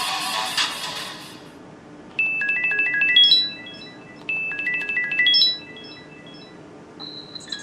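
Samsung Wave S8500 smartphone playing ringtones. The previous ringtone fades out over the first second or so. Then a short, bright melody of quick, high electronic notes plays twice, each time trailing off in echoes, and the next ringtone starts near the end.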